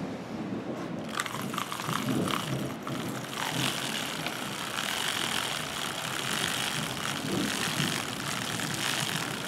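Brompton bicycle chain being turned backwards through a plastic chain-cleaning tool filled with clean water, giving a steady whirring rattle of the chain over the tool's brushes and rollers. A wet hiss joins in about three and a half seconds in.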